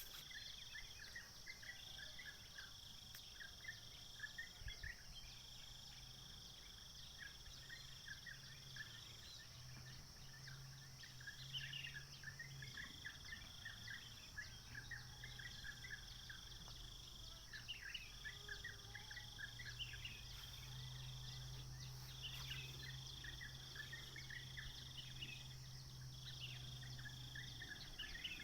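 Insects trilling in long high stretches of a few seconds each, broken by short pauses, over many quick scattered chirps, with a faint low hum underneath.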